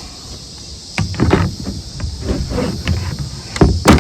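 Kayak being paddled: a series of paddle strokes swishing through the water, starting about a second in, with a few sharp knocks, the loudest near the end.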